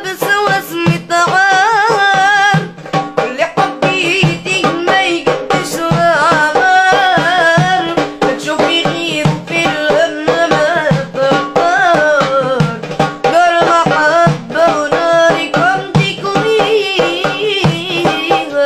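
A boy singing unaccompanied except for a goblet drum (darbuka) struck by hand. The voice moves in a wavering, ornamented line over a quick, steady drum rhythm.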